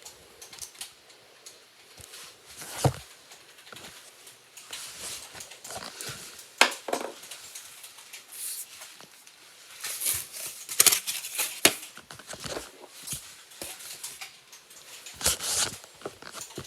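Knife carving a bar of soap close to the microphone: irregular scraping and crackling cuts with sharp clicks, busiest in clusters past the middle and near the end.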